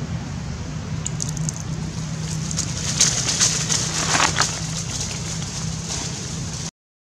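Dry fallen leaves crackling and rustling under running feet, loudest from about three to four and a half seconds in, over a steady low background hum; the sound cuts off abruptly near the end.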